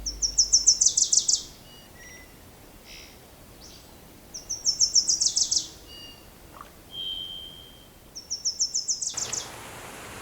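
A small songbird singing: three short phrases about four seconds apart, each a quick run of about ten high notes dropping in pitch, with a few faint single notes between. About nine seconds in, the background hiss rises abruptly, like a change to a breezier outdoor recording.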